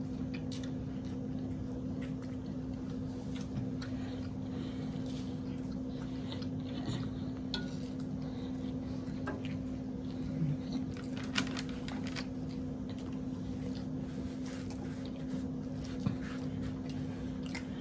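Two people eating toasted sandwiches: faint chewing and mouth sounds with scattered small clicks, over a steady low hum.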